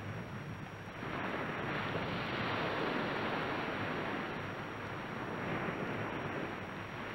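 Sea surf washing in a steady rush, growing louder about a second in and swelling again near the end.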